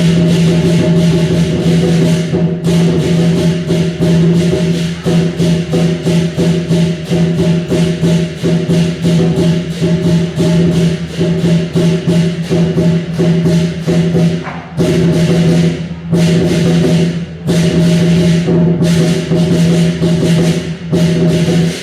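Lion dance music: fast, even drum and cymbal strikes, about four a second, over a steady low droning tone, with a few brief breaks in the second half.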